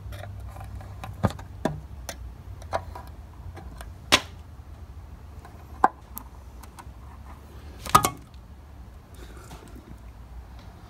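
A metal paint can being handled and its lid pried off: scattered clicks and knocks of metal on metal, the loudest sharp knock with a short ring about eight seconds in. A steady low hum runs underneath.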